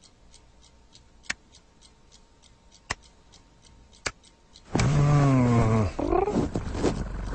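A cartoon cat's loud, drawn-out low yowl, voiced by a person, falling in pitch about five seconds in and followed by a shorter rising call. Before it, faint even ticking and a few light taps.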